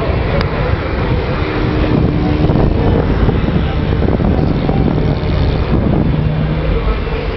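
Steady engine noise from the swamp buggies running on the water-filled track and the small engine of a radio-controlled model aircraft built to look like a flying lawnmower.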